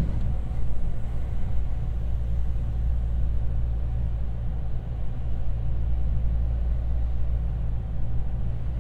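JR West 225-series electric train running, heard from inside the carriage: a steady low rumble of the wheels on the rails and the running gear.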